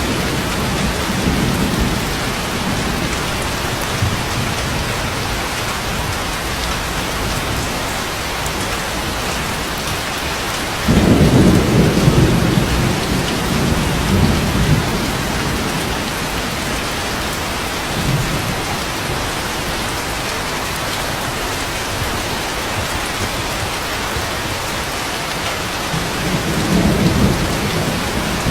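Steady rain with thunder. A loud low rumble starts suddenly about eleven seconds in and dies away over a few seconds, and a softer rumble comes near the end.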